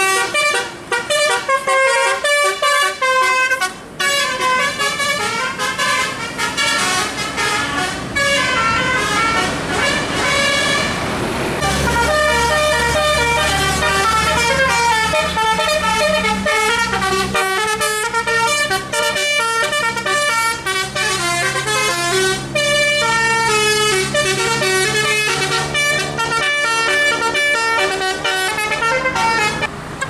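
Bus 'telolet' musical air horns playing quick tunes of stepping notes, one after another. A low engine drone joins about twelve seconds in, under the horn notes.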